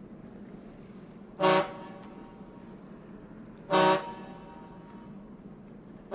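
Train horn sounding two short blasts, a couple of seconds apart, over a steady low rumble.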